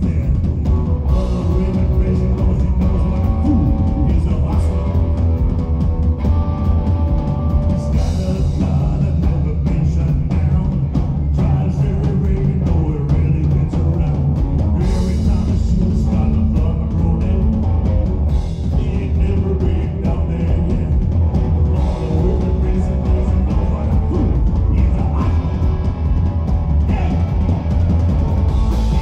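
Live rock band playing: electric guitar, electric bass and drum kit, with a man singing.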